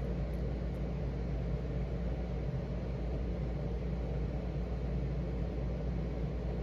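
Steady low background rumble with a faint hum, unchanging throughout.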